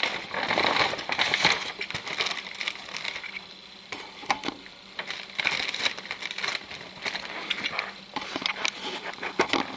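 Packaging being handled and unwrapped: irregular rustling and crinkling with short sharp clicks and taps.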